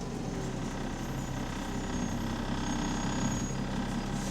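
Double-decker bus engine running on the move, a steady drone that swells slightly partway through, heard from inside the bus. The bus has an exhaust leak.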